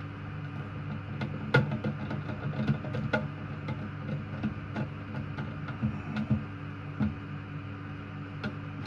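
Scattered small clicks and taps as chrome toilet-seat hinge parts are handled and fitted into the seat and pan, the sharpest about one and a half seconds in, over a steady low hum.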